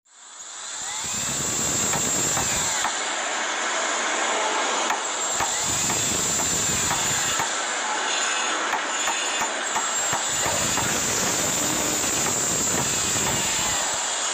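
A train recording, most likely a steam locomotive, with a steady hiss and rush of a train running. It fades in over about the first second.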